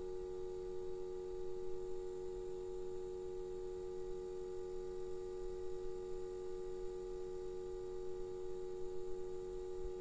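A steady electronic drone of several pure tones held together as one unchanging chord, with a faint high whine above it.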